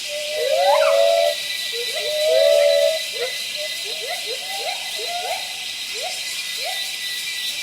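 A monkey's high-pitched calls: two longer held calls in the first three seconds, then short rising squeaks repeating about twice a second, over a steady hiss.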